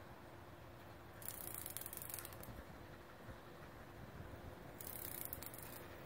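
A downed cicada giving two short buzzes, each about a second long, one about a second in and one near the end: the distress buzz of a cicada being nosed by a dog.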